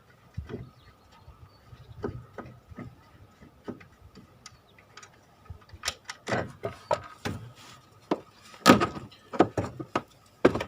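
Light metal clicks and knocks, then louder scraping and rattling with several sharp knocks from about six seconds in, as a removed front suspension strut is worked out of the wheel arch past the brake hoses.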